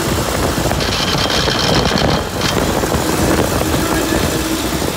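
Rover driveline running, heard from under the vehicle at the transfer case and propeller shaft: a steady mechanical rumble with a faint hum, the driveline noise the owner is trying to trace. About a second in, a high hiss with a thin steady tone joins it for a second and a half.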